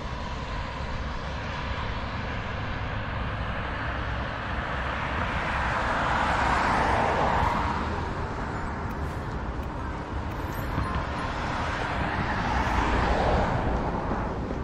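Two road vehicles passing one after the other, each a swell of tyre and road noise that builds and fades, the first about halfway through and the second near the end, over a steady outdoor rumble.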